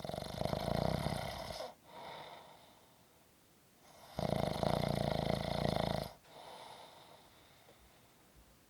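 Snoring: two loud, rattling snores about four seconds apart, each followed by a softer breath.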